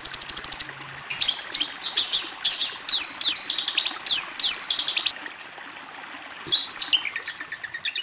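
Songbird song: a very fast trill that stops under a second in, then about four seconds of quick, downward-sweeping whistled notes repeated in phrases, and after a short pause a series of falling notes near the end. A steady stream-water hiss runs underneath.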